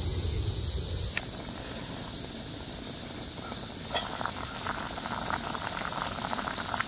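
Spaghetti sauce boiling hard in a metal camp pot on a small wood-burning stove, bubbling and popping. There is a metal clink from the lid about four seconds in, after which the bubbling comes through clearly over a steady high hiss.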